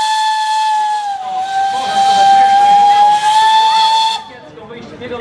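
Narrow-gauge steam locomotive's whistle blowing one long steady note over a hiss of steam, dipping slightly in pitch about a second in and then cutting off suddenly about four seconds in.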